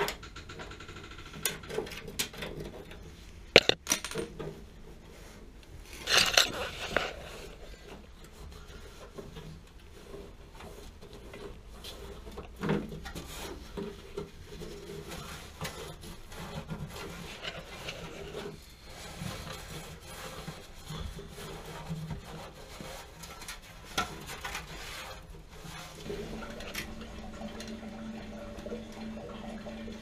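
Scattered clinks, knocks and rubbing from hands and tools working at the bottom of a gas water heater, where its flame arrestor screen is being cleaned. A steady low hum starts near the end.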